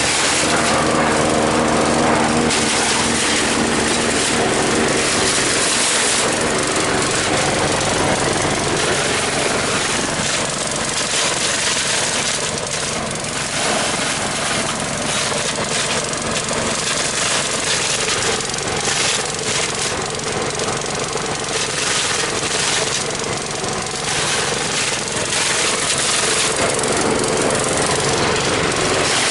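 Engine-driven patchouli leaf chopper running hard, its engine tone under a rough, clattering chopping noise that swells and eases as the load changes.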